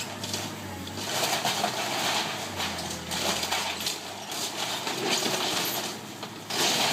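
Excavator tearing aluminum siding off a house: irregular clattering and crunching of metal and debris over the low, steady hum of its engine.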